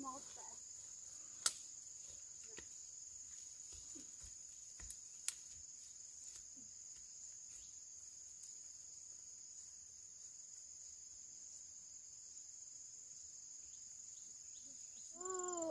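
Insects chirring in a steady high-pitched drone, with two sharp clicks at about one and a half and five seconds in.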